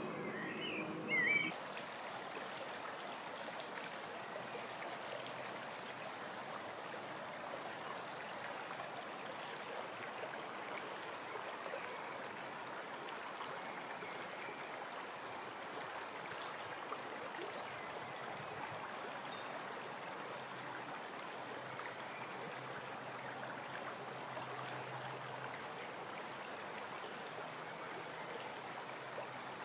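A shallow brook running over stones, a steady rushing burble, with faint high bird chirps in the first few seconds. About a second in, over a low hum, there is a brief loud chirp, which is the loudest moment.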